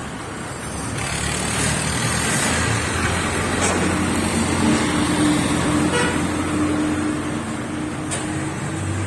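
A motor vehicle engine running steadily, its hum building slightly about a second in, with a few faint clicks over it.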